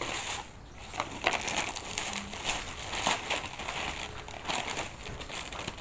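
Plastic bag crinkling and rustling as it is handled, in irregular crackles.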